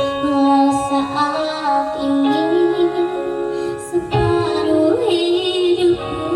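A female voice singing with musical accompaniment, holding long notes with a wavering vibrato.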